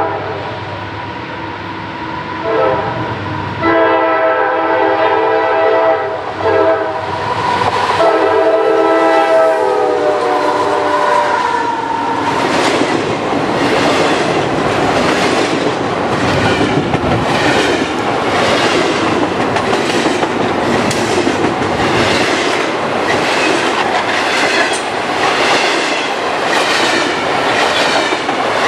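CSX freight locomotive's multi-chime air horn sounding a series of long and short blasts as the train approaches, its pitch sliding down as the locomotives pass about eleven seconds in. Then double-stack intermodal container cars roll by close at hand with a steady rumble and a regular clickety-clack of wheels over the rail joints.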